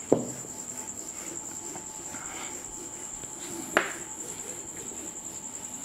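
Soft rubbing of a duster wiping a whiteboard, with two sharp knocks, one at the start and one a little under four seconds in, over a steady high-pitched tone.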